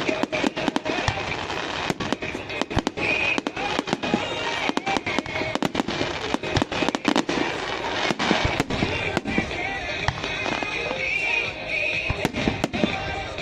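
Fireworks display: a dense, continuous run of sharp bangs and crackling reports, several a second, over a rumbling noisy bed.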